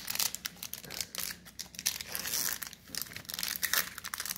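Foil wrapper of a Pokémon Fusion Strike booster pack crinkling and tearing as it is opened and the cards are slid out: a run of irregular crackles.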